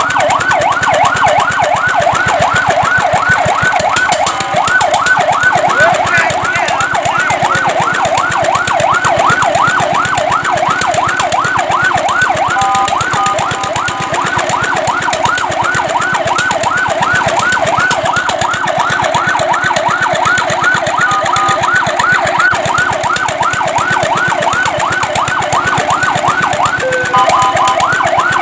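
Fire truck siren in a fast yelp, its pitch sweeping up and down about three times a second. About midway and again near the end it switches briefly to a steady stepped tone pattern before returning to the yelp.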